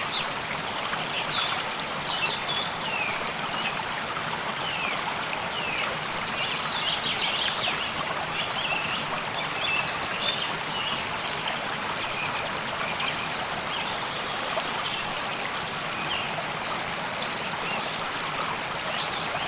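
A stream flowing and trickling steadily, with songbirds chirping: short high calls come thickly in the first half and grow sparser later.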